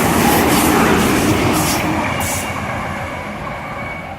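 Hunter railcar (J-set diesel multiple unit) passing through the station, its rumble loudest in the first second or two and then fading as it moves away, with a few sharp clacks from the wheels.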